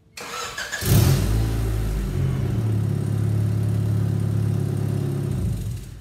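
1992 Honda Accord's four-cylinder engine starting about a second in and then running loud and steady, stopping just before the end. The loudness is from an exhaust leak at the worn-out flex pipe.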